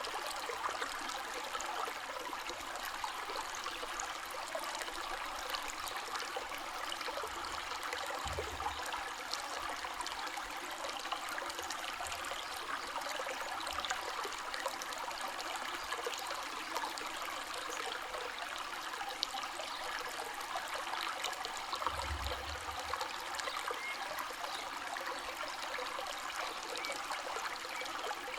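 A river flowing, a steady rush of water with fine trickling and splashing. Two brief soft low bumps come through, about a third of the way in and again past three-quarters.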